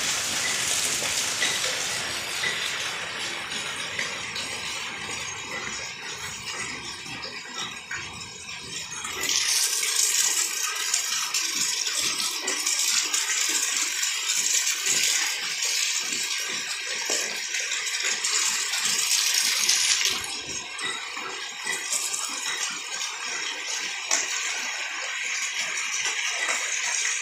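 Heavy rain falling steadily, an even hiss that grows louder and brighter from about a third of the way in until about three quarters through.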